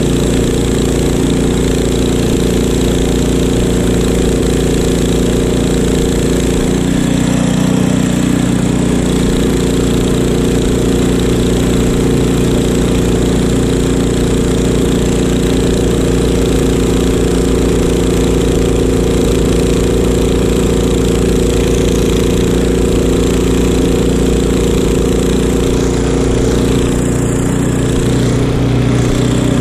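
Craftsman snowblower's small gasoline engine running steadily at working speed while it augers and throws snow, with a brief change in the engine note about seven seconds in.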